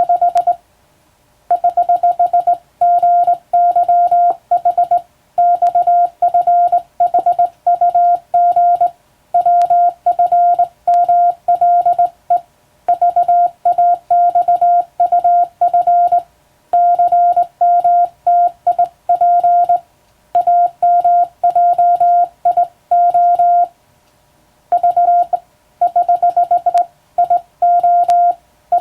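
Morse code sent by hand on a telegraph key, heard as a single steady beep tone switched on and off in dots and dashes. The characters are separated by short gaps, with a few longer pauses between words.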